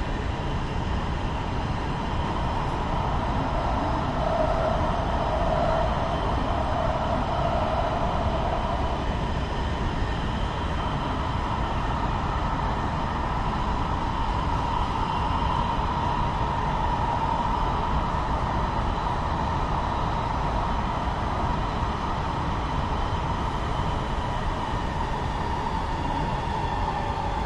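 Los Angeles Metro Rail train running, a steady rumble with a steady whine. The lower part of the whine stands out for a few seconds early in the stretch.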